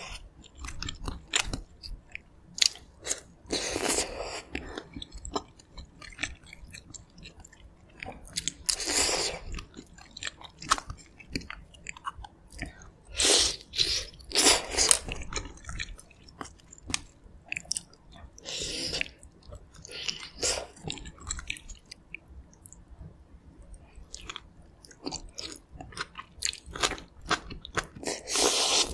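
Close-miked eating sounds of pork-bone and aged-kimchi stew (gamjatang): steady chewing and biting of tender meat and soft braised kimchi, with many small mouth clicks. Several longer, louder stretches of mouth noise stand out, about half a dozen over the span.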